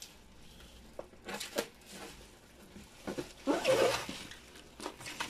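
Hands pulling and tearing at a taped cardboard shipping box: a few short crinkles and taps, and one louder tearing scrape about three and a half seconds in.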